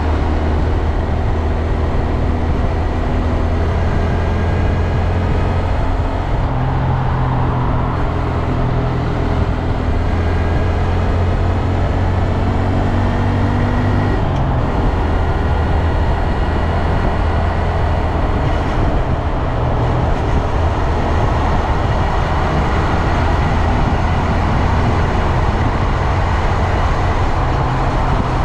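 2022 Honda Grom's 124cc single-cylinder engine running steadily under way, its pitch stepping up or down a few times, with wind and road noise. Under it is the noise the owner complains of, which a new O-ring drive chain has not cured.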